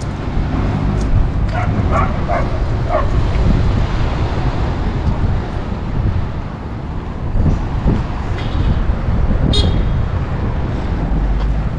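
Road traffic on the street below, a steady low rumble of passing vehicles. A few short calls come through about two to three seconds in, and a brief high sound near the end.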